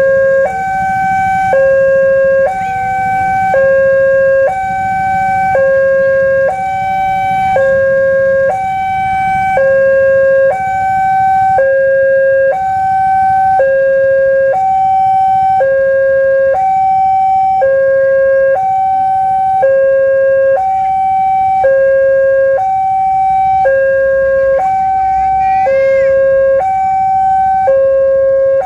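Railway level-crossing warning alarm sounding a loud two-tone high–low signal, one cycle about every two seconds, with no break. This is the signal that the gate is closed and a train is approaching. Low traffic rumble runs underneath, and a brief wavering tone sounds about 25 seconds in.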